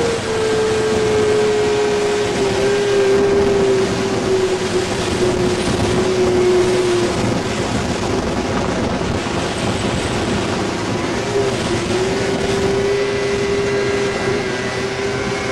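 Old Polaris two-stroke snowmobile engine held at high, steady revs to keep the sled skimming across open river water, over a constant rushing noise. Its note sags slowly, fades for a few seconds around the middle, then comes back.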